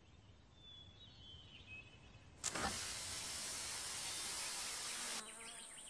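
Faint outdoor ambience with a few high chirps, then a sudden steady hiss about halfway through that lasts nearly three seconds and cuts off abruptly.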